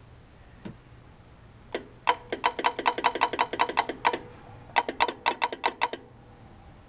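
Rapid metallic clicking from an A/C compressor clutch, about six clicks a second, in two runs with a short break between them.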